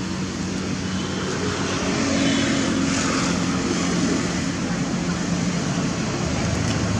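A steady engine drone with a low hum over a wide hiss, growing slowly louder.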